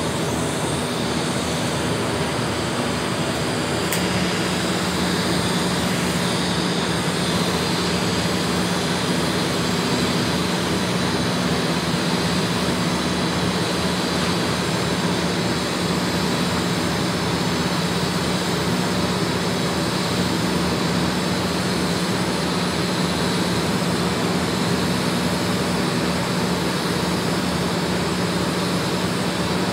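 TIG welding arc running steadily on a vertical (3G) joint: a continuous hiss with a low buzzing hum. A sharp click comes about four seconds in, after which the hum grows stronger.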